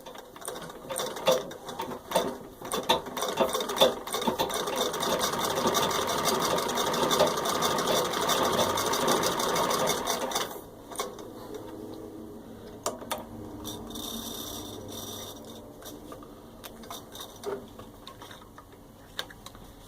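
Antique Singer VS2 vibrating shuttle sewing machine stitching through six layers of denim. It starts with a few scattered clicks, runs fast and steady from about four seconds in, then drops to a slower, quieter clicking about ten seconds in.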